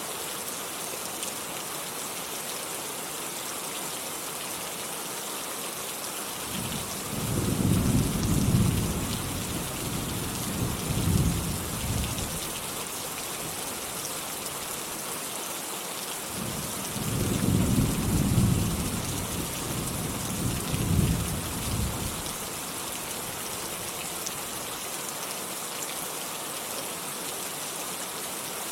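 Steady rain falling, with two rolls of low thunder: one about seven seconds in and another about sixteen seconds in, each rumbling for some five seconds with two swells.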